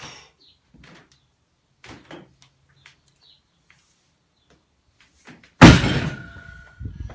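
A 215 kg barbell loaded with black rubber bumper plates is lowered hard onto the lifting platform after a deadlift: one heavy thud about five and a half seconds in, with the plates and bar ringing briefly after it. Before that, only a few faint short sounds.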